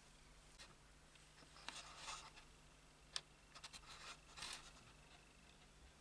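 Faint handling noise: soft rustles and a few light clicks, with one sharper tick about three seconds in, over near silence.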